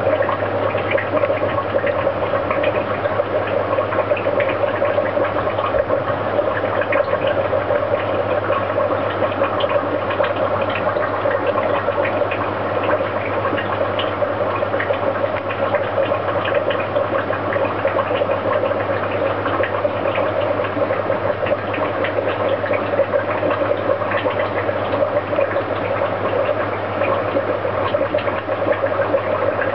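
Aquarium air bubbler: a stream of air bubbles rising through the tank water and breaking at the surface, a steady watery bubbling dotted with fine crackles, over a steady low hum.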